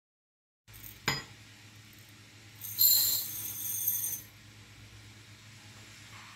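Dry rice grains poured from a glass into a ceramic bowl: a rattling patter with a bright ringing clink, lasting about a second and a half, after a single small knock about a second in.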